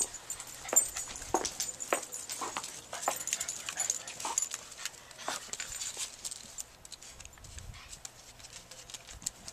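A dog scrabbling and rolling on a tiled floor: a scattered run of short claw clicks and scuffs, with a few brief dog sounds among them.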